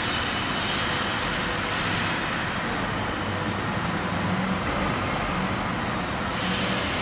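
CNC gear hobbing machine running inside its enclosure, giving a steady, even mechanical drone.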